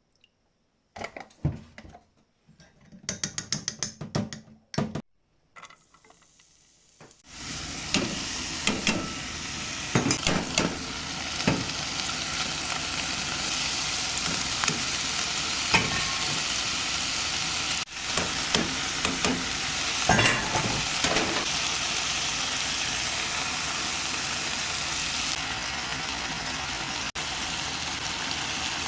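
Meat, eggplant and sweet peppers frying in a pan: scattered clicks and knocks at first, then a steady loud sizzle starts about seven seconds in, as the food goes into the hot pan. A spatula knocks and scrapes against the pan again and again as the stir-fry is turned.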